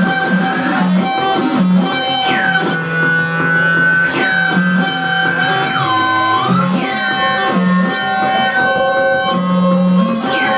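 Homemade electronic noise instrument, a knob-controlled circuit built into a round tin, playing layered steady drones. A low tone stutters on and off, high tones sweep downward every couple of seconds, and about halfway through the pitch briefly dips as the knobs are turned.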